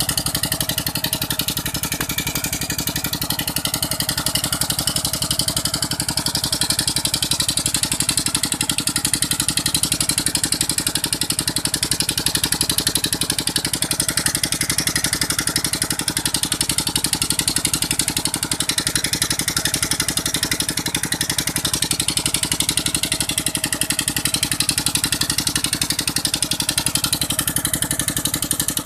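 Diesel engine of a tubewell running steadily at a constant speed as it drives the water pump, with water gushing from the outlet pipe and splashing into a concrete tank.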